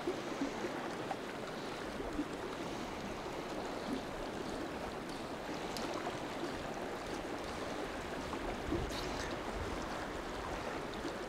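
Shallow, riffled mountain river running over a rocky bottom: a steady rush of flowing water.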